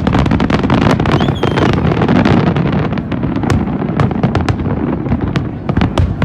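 Fireworks display: many sharp cracks and pops in quick succession over a continuous low rumble of bursting shells.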